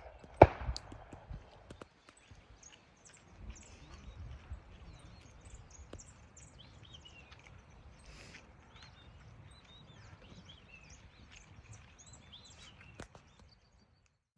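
Many small birds chirping and calling throughout. A single sharp shotgun shot about half a second in, with a few faint clicks later.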